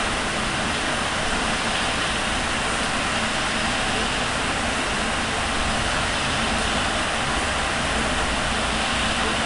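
Heavy rain pouring down steadily in a big thunderstorm, a dense unbroken hiss.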